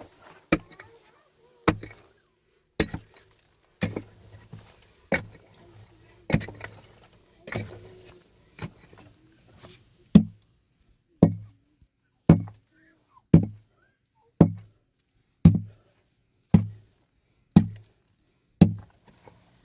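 Heavy blows struck over and over at a steady pace of about one a second, each a sharp hit with a dull thud, like chopping. In the second half the blows grow louder and more even.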